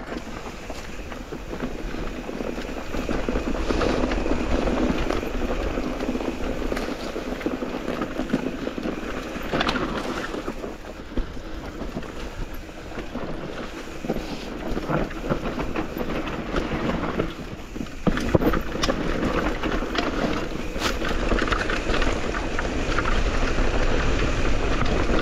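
Mountain e-bike riding over a trail: a steady rolling rattle with wind buffeting the microphone, broken by scattered sharp knocks and clatters, the loudest about 18 seconds in.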